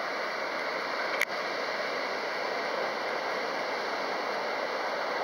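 Steady hiss of strong wind, with a single sharp click about a second in.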